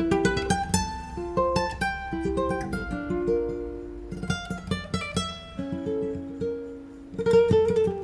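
Background music: a plucked string instrument picking out a melody of single notes, growing louder and busier about seven seconds in.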